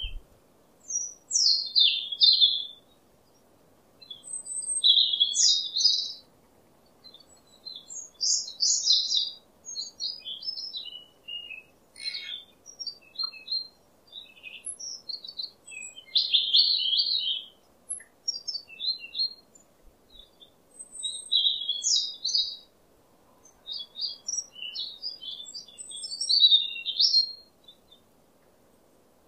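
Small birds chirping in short, high, quick phrases that come every second or two, with brief pauses between them.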